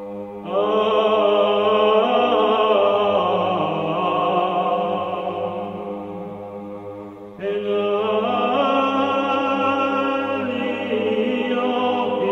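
Serbian Orthodox church chant: voices singing a hymn over a steady low held note. New phrases come in strongly about half a second in and again about seven seconds in.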